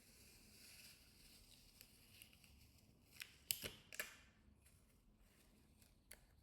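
Quiet handling of a smartphone and small parts during a repair: faint rustling, then a short cluster of small sharp clicks between about three and four seconds in, and one more click near the end.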